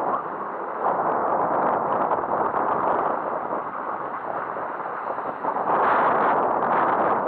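Wind rushing over and buffeting the microphone of a camera carried down a ski slope, uneven throughout and growing louder about six seconds in.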